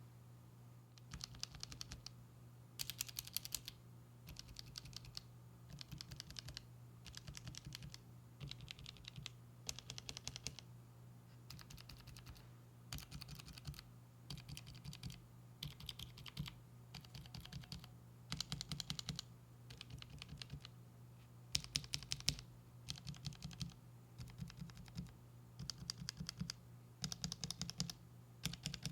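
Gateron mechanical keyboard switches pressed on a switch tester without keycaps. They click in short bursts of rapid keystrokes, one burst roughly every second, moving from switch to switch. A steady low hum runs underneath.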